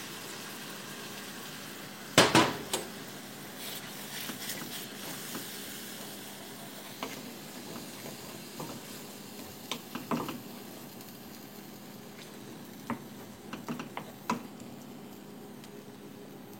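Mushrooms in cooking cream simmering in a pan with a steady low hiss. A loud clatter of a utensil against the pan comes about two seconds in, and lighter clinks of stirring follow later.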